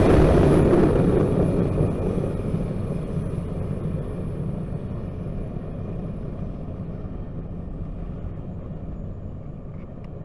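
Tail end of a CSX freight train of hopper cars rolling away: a low rumble of wheels on rail, with a high hiss that fades out about halfway through, dying away steadily as the last cars recede.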